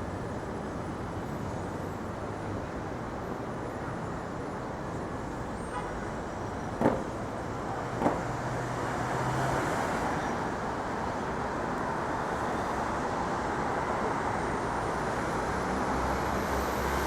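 City street traffic: a steady hum of passing vehicles, with two short sharp knocks about seven and eight seconds in, and the traffic growing louder toward the end.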